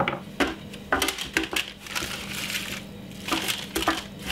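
Greaseproof paper crinkling and rustling as carrot pieces and garlic halves are set into a paper-lined roasting tray, with several light, irregular knocks.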